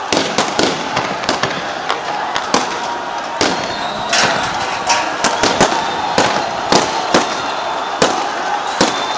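Gunshots, a rapid, irregular string of sharp cracks at roughly three a second, over a steady crowd din.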